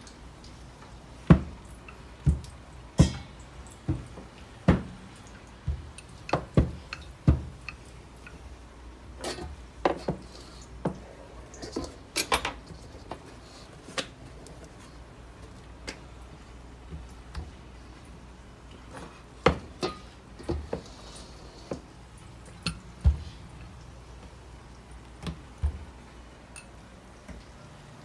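Kitchen clatter: irregular sharp knocks and clinks of utensils and dishes on hard surfaces, coming thickest in the first half, over a low steady hum.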